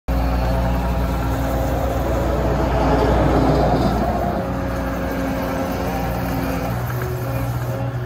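Caterpillar 279D compact track loader running and turning in place, its diesel engine holding a steady note. A louder, rougher noise swells about three seconds in, and the engine note shifts slightly near the end.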